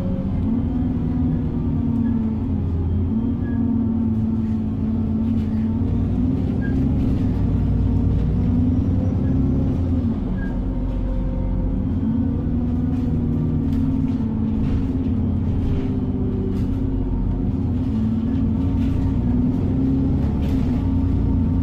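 Alexander Dennis Enviro400 double-decker bus heard from inside the passenger saloon while on the move. The engine runs with a steady low rumble, its pitch rising and falling several times, with occasional faint rattles.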